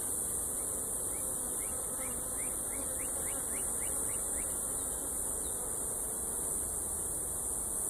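Honeybees humming steadily around an open hive, under a constant high-pitched hiss. A run of short, quick rising chirps comes through between about one and a half and four seconds in.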